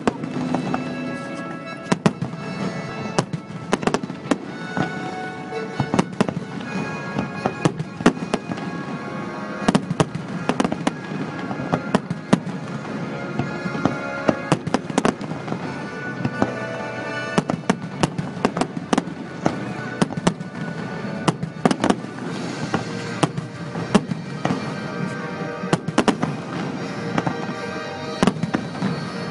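Fireworks bursting in a continuous barrage of sharp bangs at irregular intervals, with music playing throughout.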